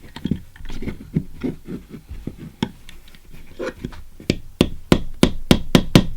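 Sharp taps and clicks of a plastic GoPro housing and aluminum clip mount being handled and knocked together while the parts are fitted. Light scattered clicks at first, then a run of stronger, evenly spaced knocks, about four a second, in the last two seconds.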